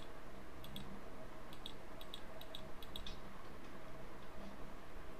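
Computer mouse clicking: a series of faint, short clicks, some in quick pairs, over a faint steady low hum.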